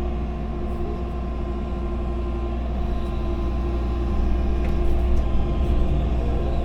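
Excavator's diesel engine running steadily with a constant hum, a little louder from about four seconds in.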